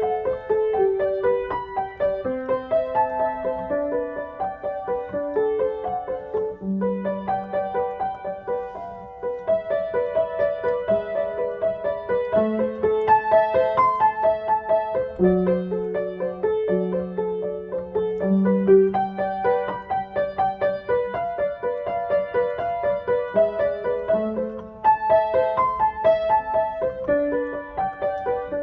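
Piano music: a gentle melody of quick repeated notes over slower held bass notes.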